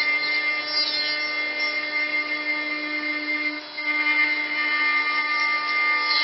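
CNC router spindle running with a steady high whine while its bit mills a curved channel into a block of wood, over a rasping cutting noise. The sound dips briefly about halfway through, then carries on.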